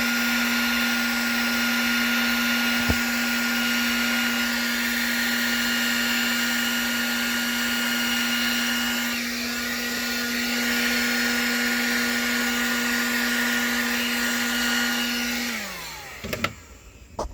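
Small handheld heat gun running steadily with a fan hum and airflow hiss. About fifteen seconds in it is switched off and winds down, falling in pitch. A couple of sharp clicks follow near the end.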